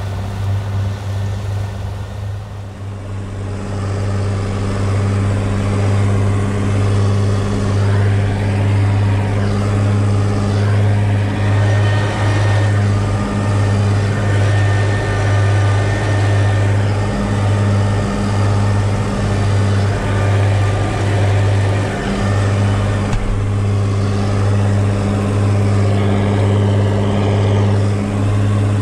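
Massey Ferguson 6180 tractor's straight-piped diesel engine running steadily under mowing load, heard from inside the cab. It gets louder about three seconds in and then holds an even drone.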